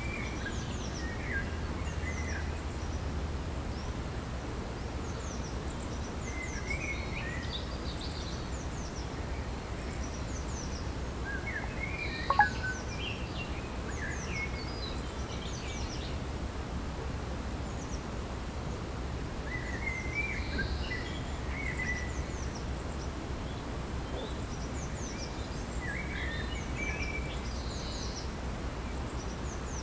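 Small birds singing and calling in scattered short chirps and trills, over a steady low rumble. A single sharp click about twelve seconds in is the loudest sound.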